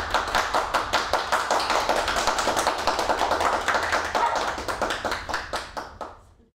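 A small audience applauding, a dense run of hand claps that fades out near the end.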